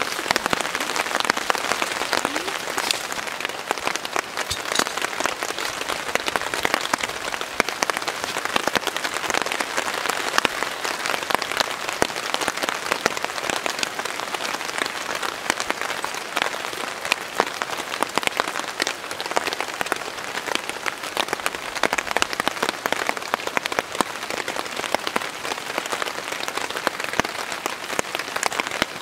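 Steady rain pattering on a nylon tarp: a dense, even crackle of many small drops with no let-up.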